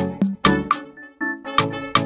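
Instrumental background music with a steady beat of drum hits and pitched notes.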